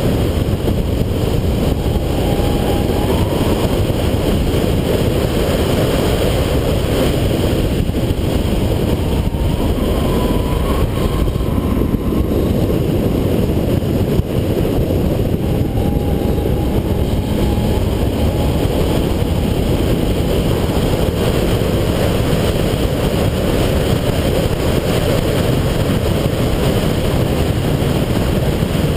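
2008 Subaru Impreza 2.5i's flat-four engine running under way, under a steady, dense rush of road and wind noise.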